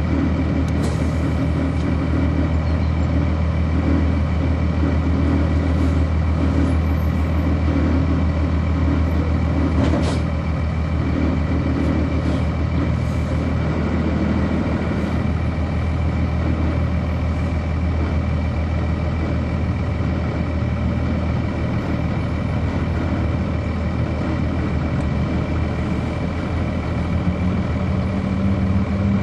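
Cummins ISC diesel engine of a 1999 Nova Bus RTS transit bus, heard from on board, running steadily under way, with a sharp click about ten seconds in and the engine note climbing near the end.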